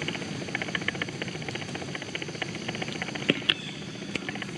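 Outdoor forest background: a steady high-pitched hum with many small, rapid ticks and clicks over it, and one sharper click a little past three seconds in.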